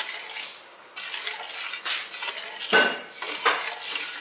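Stainless-steel spoon scraping and clinking against a steel pot while stirring liquid vermicelli payasam: a few separate strokes, the loudest a sharp ringing clink near three seconds in.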